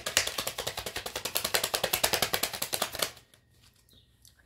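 A deck of tarot cards being shuffled: a rapid run of crisp card clicks, about a dozen a second, lasting some three seconds and then stopping.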